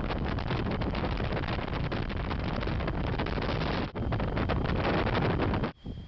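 Wind buffeting the microphone: a steady rough rushing with constant crackle. It breaks off abruptly twice at hard edits, about four seconds in and again near the end.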